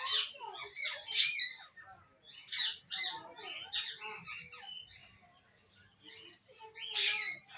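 Caged Alexandrine parakeets squawking and chirping in a run of short, high calls that bend in pitch. The calls ease off in the middle, and a loud call comes near the end.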